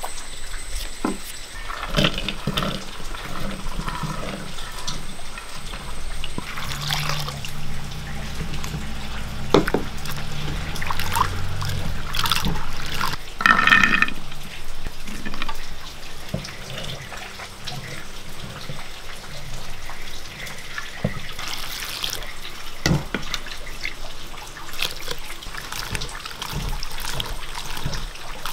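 Hands washing chopped jackfruit seeds and jackfruit core in water in an earthenware pot, with water splashing and the pieces clattering against each other and the pot. Near the start, a knife slicing shallots.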